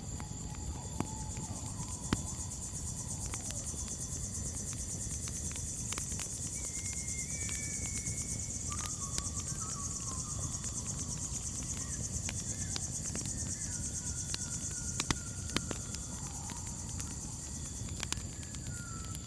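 Steady high-pitched chorus of crickets, with scattered sharp crackles from a campfire and a few short whistled calls.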